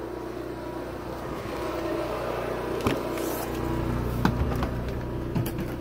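RV generator running with a steady hum, broken by a few sharp knocks, the loudest about four seconds in.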